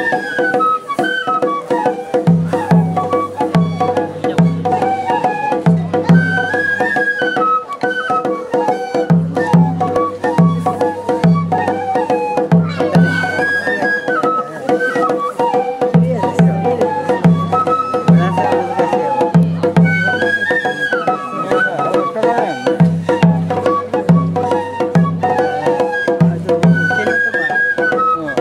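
Japanese festival hayashi music: shinobue transverse flutes play a short melody that repeats several times over a steady, regular taiko drum beat.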